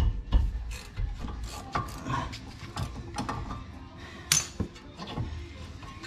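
Ratcheting wrench clicking in irregular runs as it turns a brake caliper bracket bolt, with one sharper metal click about four seconds in.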